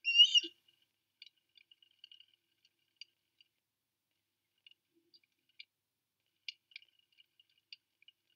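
Ospreys calling at the nest: one loud, high chirping call rising in pitch in the first half second, then faint, scattered short chirps and clicks.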